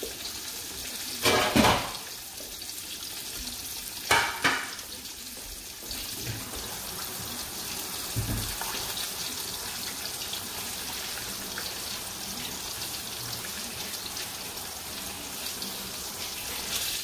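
Catfish frying in a skillet of hot oil: a steady high sizzle, with two loud, sudden bursts about a second and about four seconds in.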